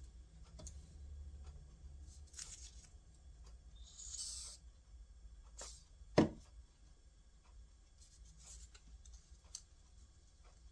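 Paper craft pieces being handled and pressed onto a paper plate: faint paper rustling and light clicks, with a brief rustle about four seconds in and one sharp tap a little after six seconds, the loudest sound.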